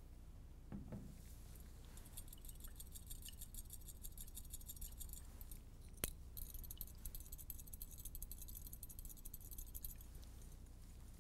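Faint rattling and clinking of a glass test tube in a metal test-tube holder as it is handled, in two stretches, with one sharp click about six seconds in.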